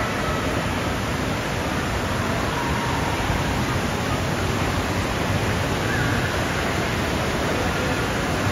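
Steady, even rushing roar of running water in an indoor water park, from its water slides and splash-play structure, with faint distant voices in the echoing hall.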